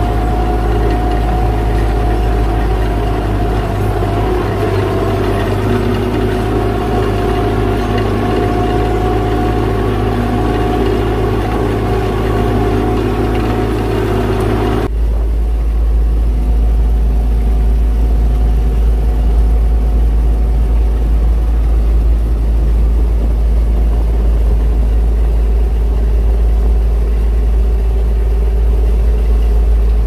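Farm tractor's diesel engine running steadily under load while ploughing stubble. About halfway through the sound switches abruptly to a deeper, duller drone.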